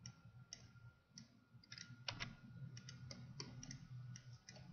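Faint computer mouse button clicks, a dozen or so short clicks at an irregular pace, over a low steady hum.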